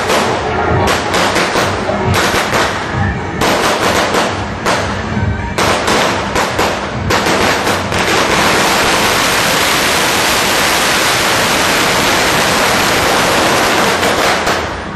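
A string of firecrackers going off in rapid crackling: several separate bursts in the first seven seconds, then an unbroken crackle from about eight seconds in that stops just before the end.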